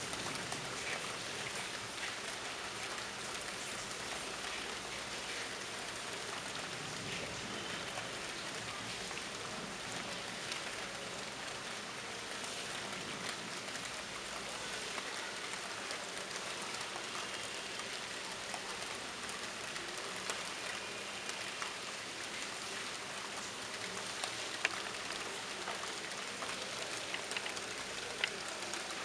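Monsoon rain falling steadily on a terrace floor: an even hiss of rain with scattered sharper drop splats, a couple of louder single drops near the end.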